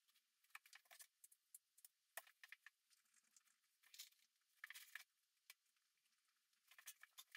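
Faint, scattered small clicks and rustles of hands at work: blue painter's tape and tile pieces being handled and pressed at the top of a tiled shower niche.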